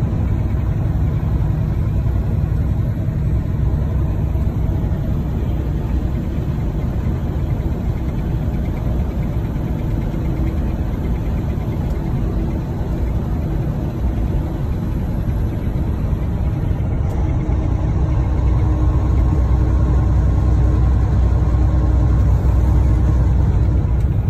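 Semi truck's engine and road noise heard from inside the cab while driving at highway speed: a steady low sound, a little louder near the end.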